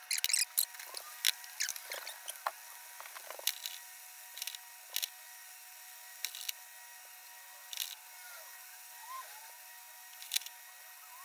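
Chicken and chorizo frying in a pan on the hob, with scattered sharp crackles and spits. There are a few clatters of pan and utensil in the first three seconds.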